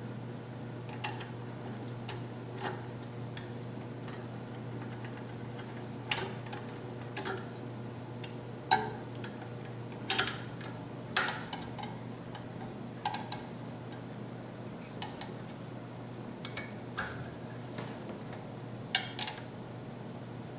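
Irregular light metallic clicks and taps of a 4 mm Allen wrench turning the two screws of a metal water bottle cage on a bike frame, over a steady low hum.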